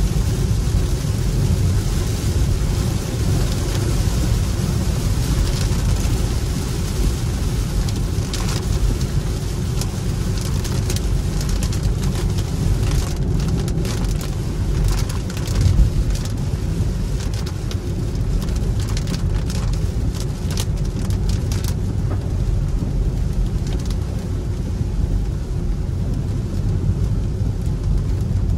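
Cabin noise inside a Hyundai Ioniq 5 electric car driving on a wet road: steady low tyre rumble and road noise with the hiss of rain and spray. Scattered ticks and spatters are heard through the middle stretch.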